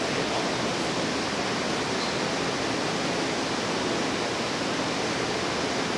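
Electric potter's wheel spinning steadily under a large wet porcelain jar, a constant rushing whir as the potter's hand sweeps the wall outward from inside.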